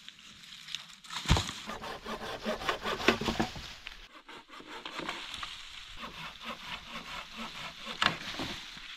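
Dry leaf litter crunching and dead branches cracking and snapping as fallen wood is stepped on and handled, with sharp cracks about a second in, around three seconds and near the end.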